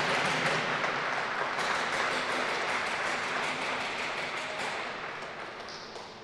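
Applause and clapping from the rink's audience, fading away gradually.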